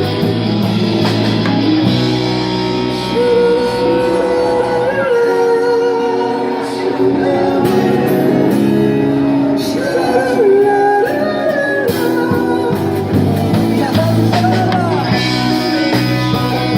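Live amplified band music: guitars playing sustained chords under a held, gliding melody line, in a rock-pop style.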